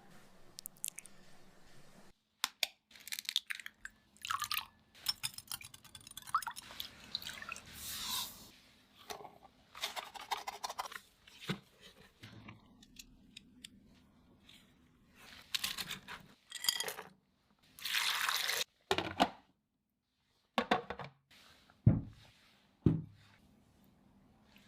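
A string of short, separate food and liquid sounds with quiet gaps between them: pouring and dripping liquid and crunching food.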